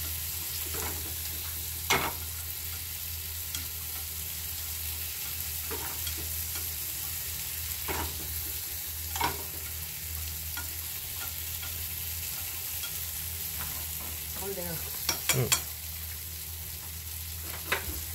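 Snap peas sizzling steadily in a hot frying pan while being stirred with cooking chopsticks. A few sharp clicks of the chopsticks against the pan, with a quick run of three about fifteen seconds in.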